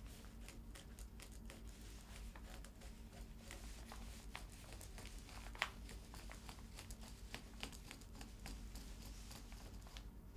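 Faint scratching of a pen tip drawn along the edge of a paper pattern onto fabric, with paper rustling under the hands and many small ticks; one sharper tick about five and a half seconds in.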